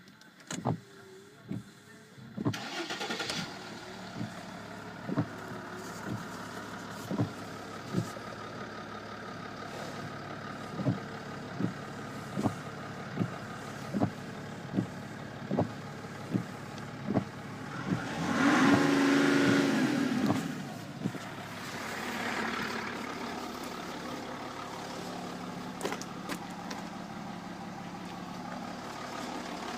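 Mercedes OM613.960 3.2-litre inline-six turbodiesel starting about two and a half seconds in after a few clicks, then idling with a sharp tick recurring about every 0.8 s. About two-thirds through it is revved once, the pitch rising and falling, with a smaller rise a little later, before it settles back to idle.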